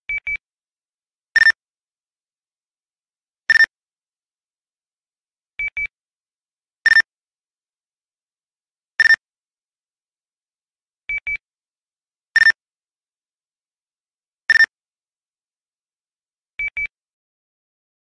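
Nextel phone alert-beep ringtone: a quick pair of high chirps, then two short, slightly lower beeps about two seconds apart. The cycle repeats about every five and a half seconds.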